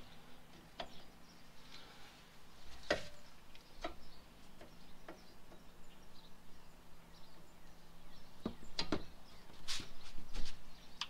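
Long-handled socket wrench on the front brake caliper bolts: scattered light metallic clicks and knocks as the socket is fitted and the bolt is worked loose, with several close together near the end.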